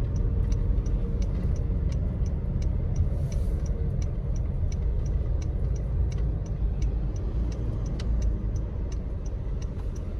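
Steady low road and engine rumble heard inside a car's cabin, with a turn-signal indicator ticking evenly, about two to three ticks a second.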